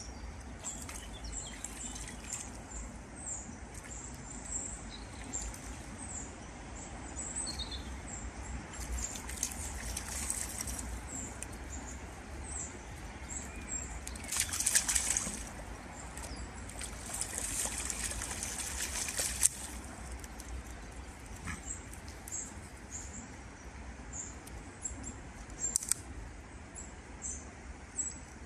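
Small birds chirping over and over, with a few short bursts of water splashing from a dachshund swimming in a shallow pond.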